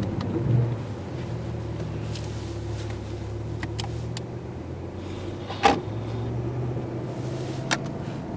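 BMW i8's engine running steadily at low, even revs, with a few short sharp clicks, the loudest one just past the middle.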